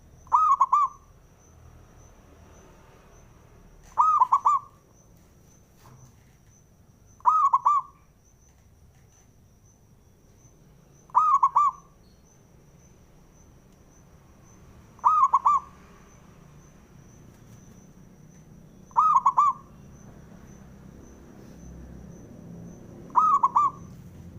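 Zebra dove (perkutut) cooing: seven short bursts of quick, rolling notes, one about every four seconds.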